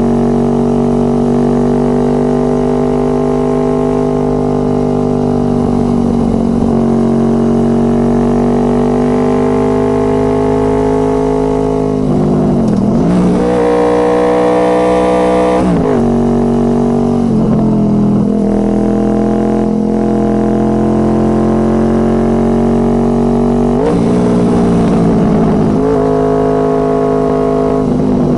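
Honda VFR800 Interceptor's V4 engine through a Two Brothers Racing exhaust, heard from the rear of the bike, running on steady throttle with its pitch gently rising and falling. A few times the revs drop sharply and climb back up, most deeply about halfway through.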